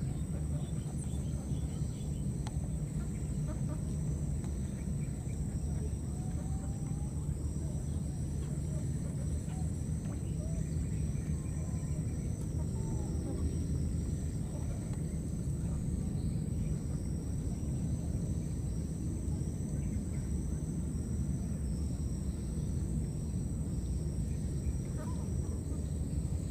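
Steady outdoor background noise: a constant low rumble under a thin, high, continuous whine, with a few faint short calls scattered through.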